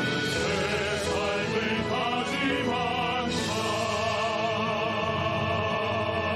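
Male operatic vocal quartet singing in harmony with orchestra, the voices wavering with vibrato. About three seconds in they settle into a long held chord, the song's closing note.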